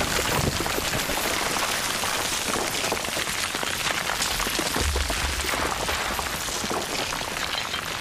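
Steady hiss of heavy rain, with a short low rumble about five seconds in.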